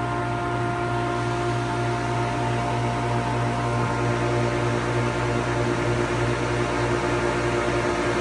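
SuperB grain dryer's fan running steadily in cooling mode, a loud, even mechanical hum with a constant drone and several steady tones over it.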